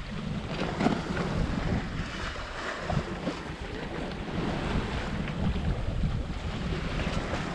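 Wind buffeting the microphone over the steady rush of waves around a small sailboat under sail at sea.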